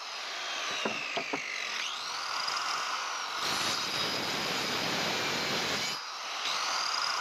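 Handheld electric circular saw winding down, then switched on again, its whine rising, and cutting through wood for a couple of seconds before easing off and spinning up once more near the end. Three short knocks come early on as the saw is repositioned. It is cutting side-by-side kerfs into the end of a board to form a long tenon.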